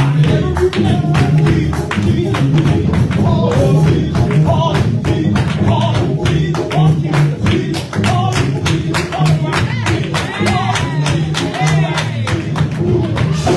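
Live music: voices singing over a band with a strong bass line and a steady, driving beat.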